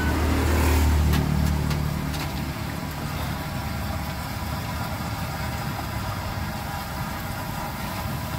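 A low engine rumble, loudest for the first two seconds and then fading, over the steady hiss of cassava chunks deep-frying in a wok of oil, with a few light clicks of a metal spatula in the first couple of seconds.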